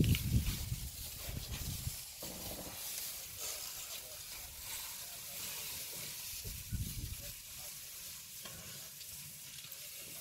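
Elephant herd moving and feeding through dry grass and brush: a steady crackling rustle, with deeper low bursts in the first two seconds and again about seven seconds in.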